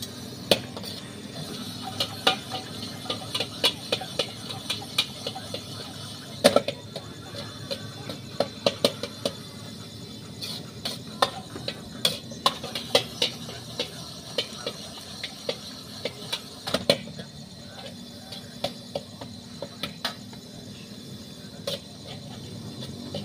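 Fried rice being stir-fried in a wok: a metal utensil clanks and scrapes against the wok in irregular sharp strikes, over a steady hiss.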